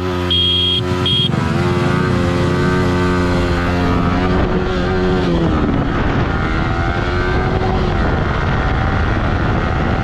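Yamaha R15 S single-cylinder engine under full-throttle acceleration from a standing start. Its pitch climbs through each gear and drops at the upshifts, about one and a half, five and a half and eight and a half seconds in, while wind noise builds with speed. A few short high beeps sound in the first second.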